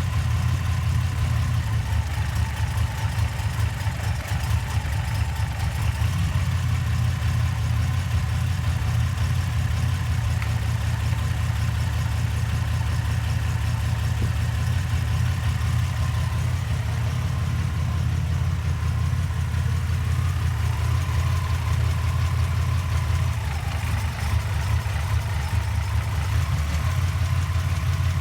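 Car engine idling steadily with a light misfire on cylinder number 4.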